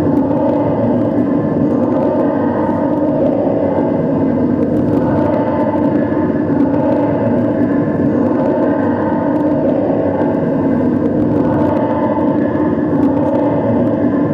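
Loud, steady electronic drone: a dense wall of noise with several held tones stacked in it, unchanging.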